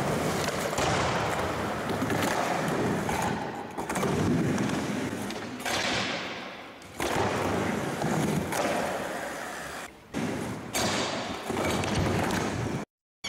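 Skateboard rolling back and forth on a mini ramp, the wheels rumbling on the ramp surface, with thuds of the board landing and the trucks grinding on the metal coping. The sound breaks off suddenly a few times.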